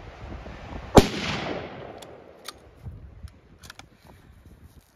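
A single hunting-rifle shot about a second in, its report rolling away and fading over about a second. A few light clicks follow.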